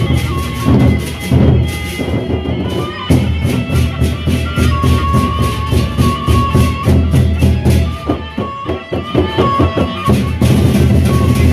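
Lombok gendang beleq ensemble playing: large double-headed barrel drums beaten with sticks in a dense interlocking rhythm, with quick, regular cymbal clashes and a held high melody line over them. The drumming thins out briefly near the end before the full ensemble comes back in.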